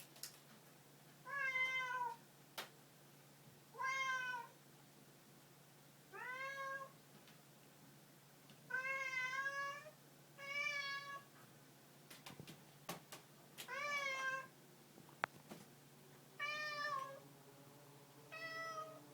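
A domestic cat meowing over and over, about eight short meows two to three seconds apart, with a few faint clicks between them.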